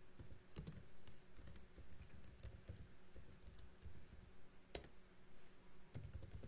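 Computer keyboard being typed on: a run of faint, irregular key clicks, with one louder keystroke about three-quarters through as the command is entered, then a quick cluster of keys near the end.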